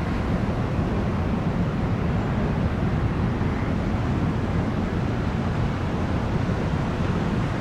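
Jetfoil under way: a steady low rumble with a rush of wind and water, even throughout.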